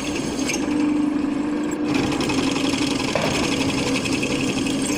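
Electric drilling machine running steadily, its motor giving a constant hum under a rattling whir.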